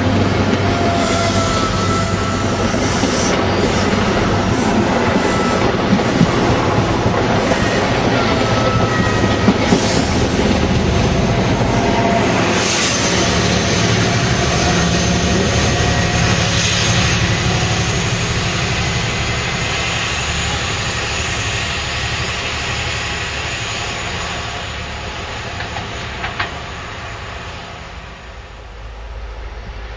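HST (InterCity 125) train running through at close range: the coaches' wheels rolling with a dense rushing noise and clickety-clack over rail joints, with a few short squeals. The power car passes about halfway through, and the sound then fades away over the last ten seconds or so.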